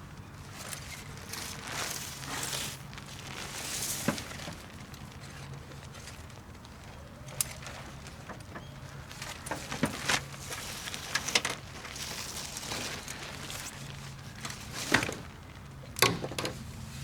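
Camping gear being handled during setup: scattered sharp clicks and knocks with rustling in between, over a steady low hum.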